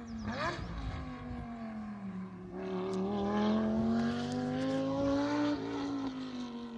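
Race car engine running on the circuit, its pitch climbing steadily as it accelerates and loudest a few seconds in, then dropping away near the end. A quicker rise and fall of engine pitch comes about half a second in.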